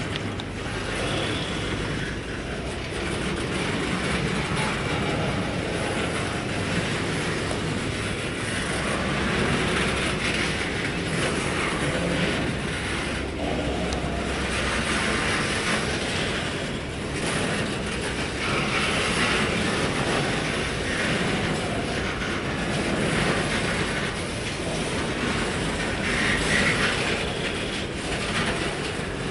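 Freight train cars rolling past steadily, with a continuous rumble and the clatter of wheels over the rails.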